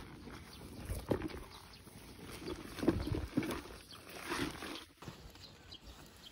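Long rubber wading boots being handled and pulled on, the rubber rubbing and flapping in a few irregular bursts.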